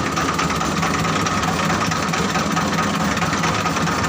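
Diesel engine of a mobile rice-hulling machine running steadily, with a steady high whine over its drone.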